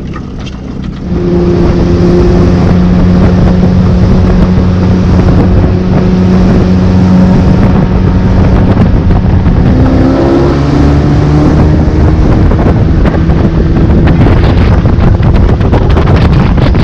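Motorboat engine getting louder about a second in and then running steadily under way, its pitch rising again about ten seconds in as it speeds up. Wind buffets the microphone.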